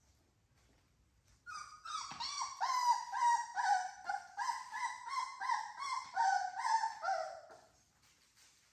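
Three-week-old American Bully puppy whining: a run of short, high, pitched cries, about two a second, each dropping slightly in pitch, starting about a second and a half in and stopping shortly before the end.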